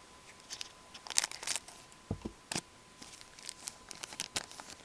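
A hockey card pack wrapper being torn open and crinkled in the hands: a string of separate crackles and rustles, loudest about a second in, with a soft thump a little past two seconds.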